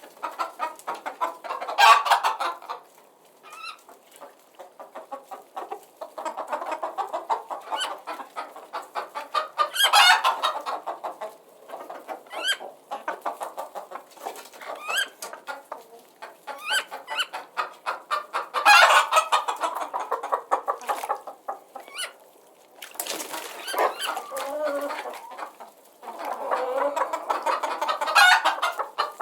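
Chickens clucking continuously, with louder squawking bursts every eight or nine seconds.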